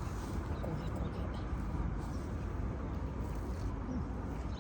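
Steady low outdoor rumble, like distant traffic, with a few faint bird chirps.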